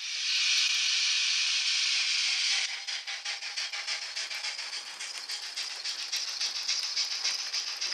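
H0 model of a class 64 steam tank locomotive letting off a loud steady hiss of steam for about two and a half seconds, then moving off with a fast, even clicking rattle of the train rolling over the track.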